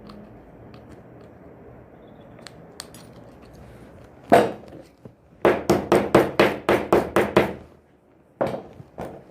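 Hard hammer-like strikes during a shower-door repair: one loud blow, then a quick run of about ten strikes at roughly five a second, then two more near the end.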